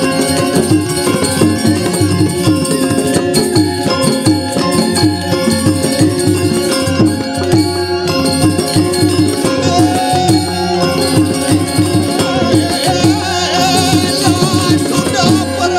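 Traditional Indonesian gamelan music playing for a dance, with held ringing tones over a busy, steady rhythm.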